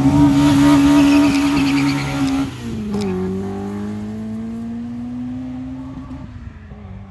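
A car's engine accelerating hard, held at high revs, then shifting up about two and a half seconds in and revving up again through the next gear as it pulls away and fades. A single sharp crack comes just after the shift.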